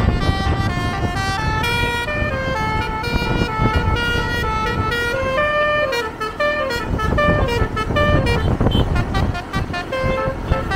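Bus basuri horn, a multi-tone musical air horn, playing a melody of quick stepped notes, with a few falling glides about six seconds in, over a low road rumble.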